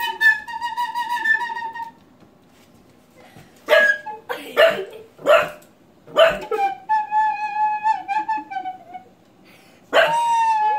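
A recorder holding single long notes, and a pug puppy barking at it: a held note, then four short sharp barks about four to six seconds in, then another slightly wavering held note, and a new note starting near the end.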